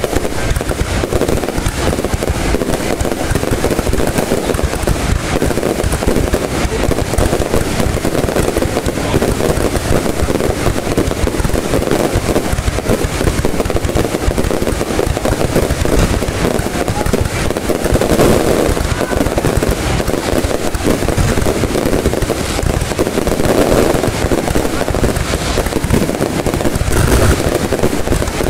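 Aerial fireworks display going off continuously, a dense stream of bangs and crackling with no break, swelling louder several times toward the end.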